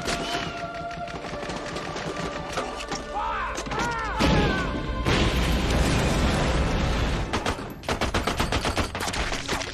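Film battle sound: gunfire, then a heavy boom about four seconds in as a field gun fires, followed by dense battle noise. Near the end, rapid heavy machine-gun fire at about five shots a second.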